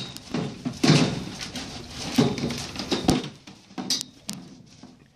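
A horse eating feed out of a plastic bucket: irregular crunching and rustling as it works its muzzle through the feed, with sharp knocks against the bucket about a second in and again around three seconds in.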